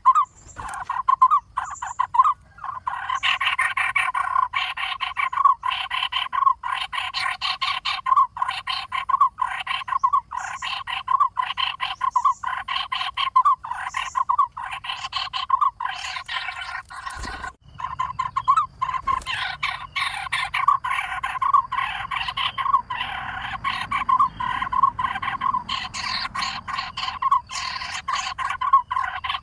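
Woodpecker nestlings begging in the nest: rapid, repeated calls, several a second, kept up almost without pause, with a brief break about 17 seconds in.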